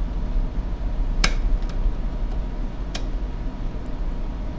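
Two sharp metallic clicks, about two seconds apart, as a C-clip is clipped onto the neck of a double-profile euro lock cylinder with a pliers-type clipping tool, over a steady low hum.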